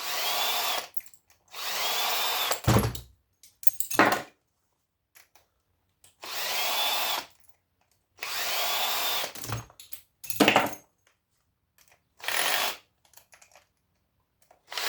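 Cordless drill run in about five short bursts of roughly a second each, each starting with a rising whine as it spins out the small screws holding scrap aluminium and copper coil units together. Sharp metal knocks in between as the screws and parts are handled.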